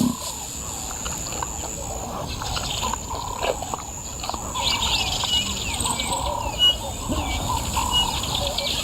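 Birds calling and chirping in the bush, with many short warbling notes and, from about halfway on, one short high note repeated roughly every second over a steady faint high hiss.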